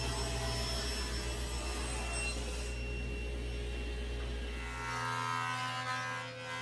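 Table saw running as a walnut board is ripped lengthwise, the cutting noise easing off about three seconds in. About five seconds in it gives way to the steady buzz of a JET jointer.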